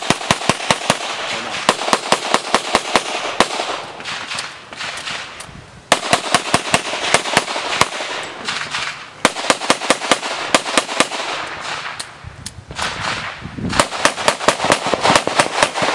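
Springfield Armory XDm 5.25 pistol in .40 S&W fired in rapid strings of shots during a practical-shooting stage. Sharp, closely spaced reports come in clusters, with brief lulls about four seconds in and again around twelve seconds while the shooter moves between positions.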